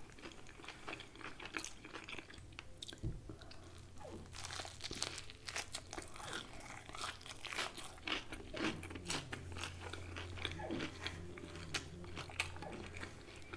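Close-miked biting and chewing of a crispy fried chicken sandwich, with irregular crunches of the breading throughout. A steady low hum runs underneath from about three seconds in.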